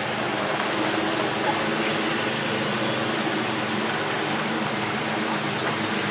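Steady outdoor background noise: an even hiss with a low hum beneath it, unchanging throughout.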